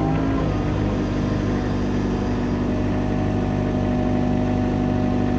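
John Deere excavator's diesel engine running steadily while the machine is worked, with a brief wavering in pitch at the start.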